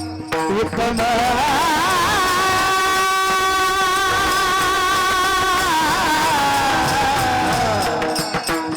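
A singer holding one long, high note with a wavering vibrato in Varkari kirtan devotional singing: the voice climbs into the note about a second in and slides down from it near the end.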